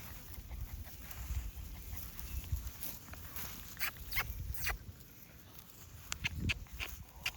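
English Labrador puppies moving about, with a scatter of short clicks and rustles over a low rumbling noise on the microphone.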